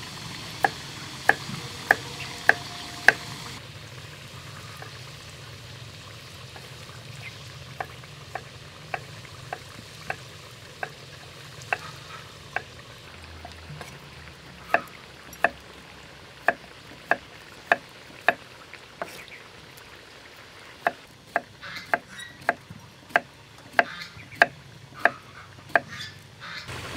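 Knife strokes on a wooden chopping board as vegetables are cut, sharp regular taps about two a second in several runs, quickening near the end; scissors snipping chillies in between.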